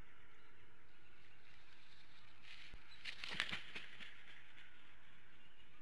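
Bald eagle taking off from its stick nest: a short burst of rustling and several wingbeat flaps about three seconds in, over a faint steady outdoor background.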